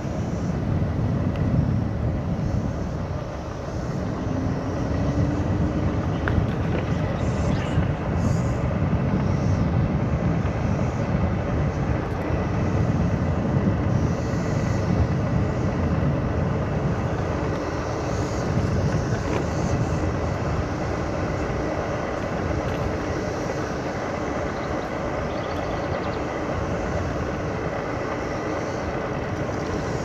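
Segway Ninebot Max G2 electric kick scooter riding along a paved trail: a steady low rumble from the tyres and moving air, with a faint thin whine above it.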